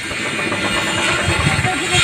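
Music with guitar and drums.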